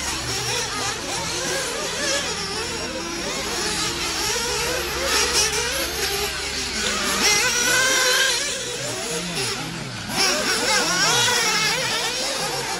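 Several radio-controlled off-road buggies racing on a dirt track, their motors whining and rising and falling in pitch as they speed up and slow down.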